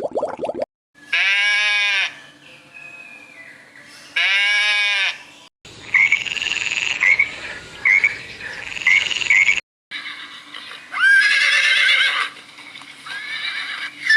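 A string of separate animal-call recordings, cut apart by brief silences: two matching pitched calls about a second each, then a run of short high calls repeated about twice a second, then more high calls near the end.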